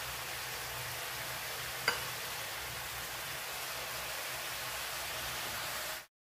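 Catfish pieces frying in red curry paste and oil in a wok, a steady sizzle. There is one sharp click about two seconds in, and the sound cuts off just before the end.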